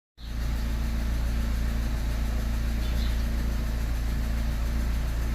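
Peugeot 207 engine idling steadily and evenly, running right after a head-gasket repair and new spark plugs cured its misfire.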